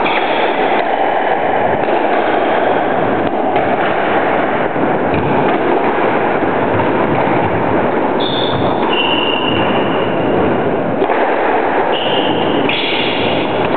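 Steady loud rushing noise, with high squeaks of squash shoes on the wooden court floor about eight seconds in and again near the end, and a few faint knocks of ball and racket in the rally.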